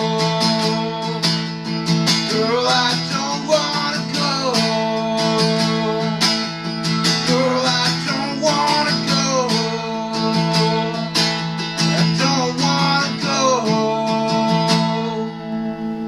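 Acoustic guitar strummed in a steady rhythm, playing out the end of a song. Near the end the strumming stops and a final chord rings out and fades.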